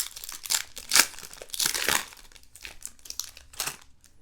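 Foil trading-card pack wrapper crinkling and tearing as it is pulled open by hand, in a run of irregular crackly rustles, loudest about a second in and again around two seconds.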